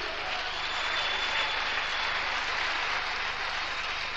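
Congregation applauding: a dense, even clatter of many hands that swells in the first second and eases off near the end.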